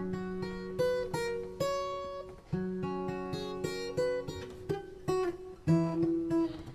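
Acoustic guitar played alone, picking out chord notes one after another, each note ringing on.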